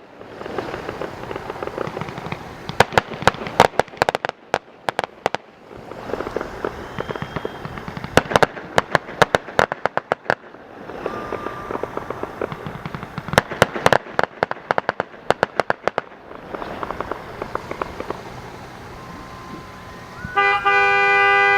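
Fireworks display: repeated clusters of rapid crackling bangs with a rumbling haze between them. Near the end a car horn honks loudly for about a second.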